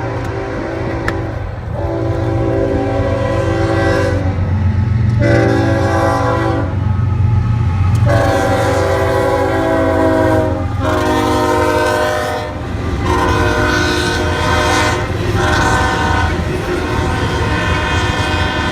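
Locomotive air horn sounding a chord of several notes in a series of long blasts with short breaks between them, over the steady low rumble of the passing train.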